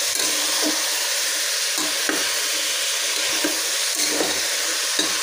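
Chopped vegetables sizzling as they sauté in a pressure cooker, with a steady frying hiss and a metal ladle stirring and knocking against the pot now and then.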